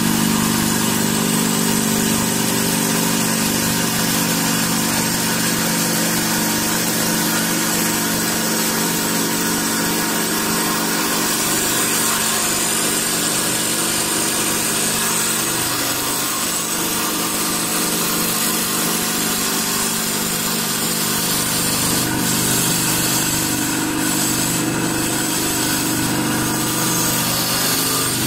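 Automatic CNC wood-turning lathe running: a steady motor hum with a high hiss over it.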